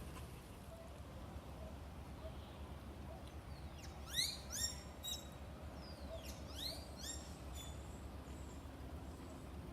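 Birds calling: a quick series of short rising chirps about four seconds in and again about seven seconds in, over a steady low outdoor rumble.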